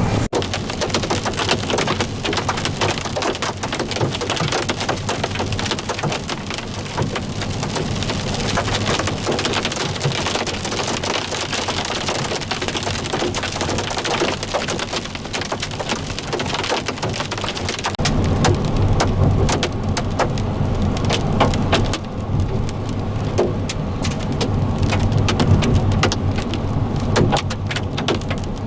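Heavy storm rain pelting the chase vehicle, a dense hiss packed with sharp individual impacts. About two-thirds of the way in, a deeper rumble joins underneath.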